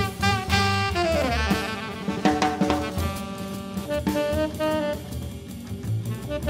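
Jazz trio playing: a tenor saxophone line with a falling run about a second in, then longer held notes, over bass and a drum kit with cymbals.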